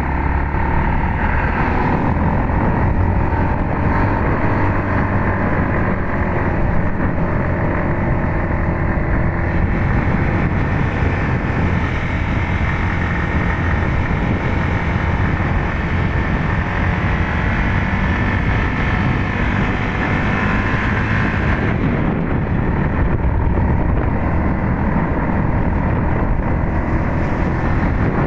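Motorcycle engine running steadily while riding, its note rising and falling a little, over a low rumble of road and wind noise.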